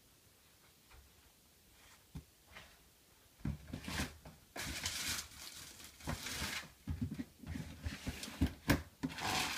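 Irregular rustling and crinkling with small knocks, starting about three and a half seconds in after a quiet stretch: handling of a bag of dry coco-fibre substrate.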